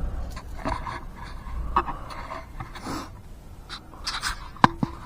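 Handling noises from work on a steering linkage: light scraping and rustling, with a sharp metallic clink near the end that rings briefly.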